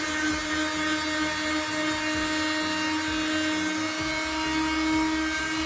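FastCraft 2.4 amp oscillating multi-tool running with its hook-and-loop sanding pad fitted: a steady buzzing hum held at one pitch.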